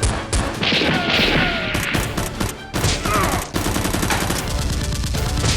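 Rapid, continuous gunfire from several guns, shots following one another several times a second, with music underneath.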